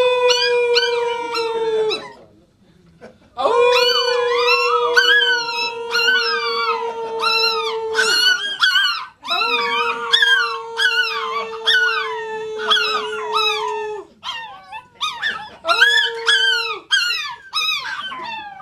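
Two chihuahuas howling in high, wavering cries, joined by people holding long, steady howls. The howling comes in four long runs with short breaks between.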